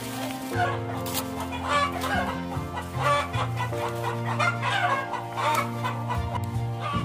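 Chickens clucking in short, irregular calls over background music of held chords.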